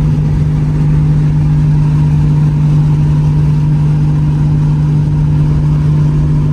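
Inside the cabin of a big-turbo Toyota Supra cruising at a steady speed: a steady engine drone that holds one pitch, over low road rumble.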